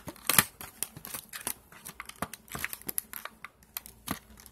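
Clear plastic blister packaging crinkling and clicking in the hands as it is pried at to get it open, with irregular crackles and a sharper crack about half a second in.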